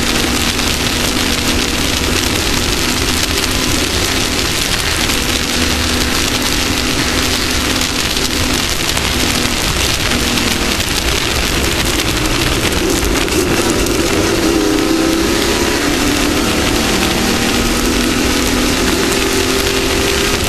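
Off-road race vehicle's engine running at speed, its pitch falling and rising with the throttle, under a loud steady rushing hiss.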